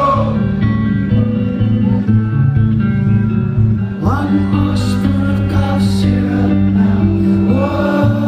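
Indie rock band playing live: guitars and bass sustain steady chords, and a male voice sings a line about four seconds in and again near the end.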